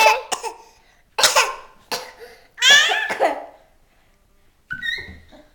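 A child's voice in three short, sharp outbursts with quiet between, the loudest about two and a half seconds in, sounding like coughs or giggles.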